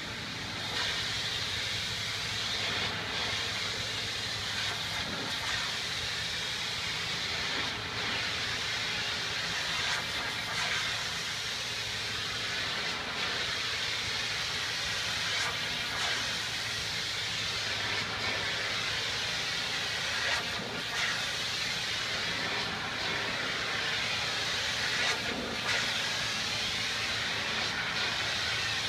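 Pressure washer's high-pressure water jet hissing steadily as it blasts a fabric window awning, with the steady low drone of the pressure washer running underneath.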